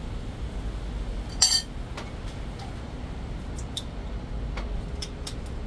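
A spoon clinks once against a bowl, sharp and ringing, about one and a half seconds in. A few light ticks and taps of utensils and a spice jar follow.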